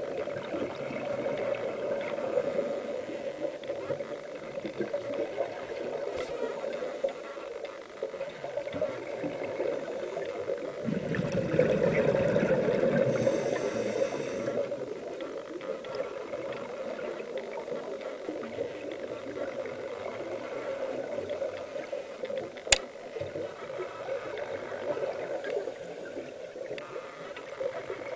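Steady muffled water noise, swelling louder about halfway through, with a single sharp click near the end.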